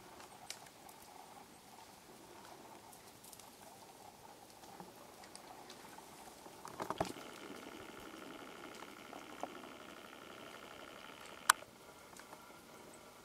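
Faint outdoor background with scattered small clicks. About seven seconds in, a cluster of clicks leads into a steady, faint whine from a camcorder's zoom motor as the shot zooms in. The whine lasts about four seconds and is cut off by one sharp click, the loudest sound.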